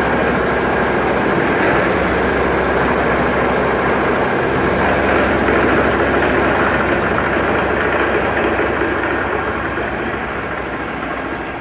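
Steady running noise of a milling machine, fading out near the end.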